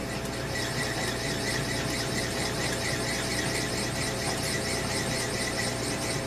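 A South Bend metal lathe running while a drill cuts into the bore of a steel motorcycle handlebar end, the cut squealing steadily with a wavering high tone over the lathe's motor hum.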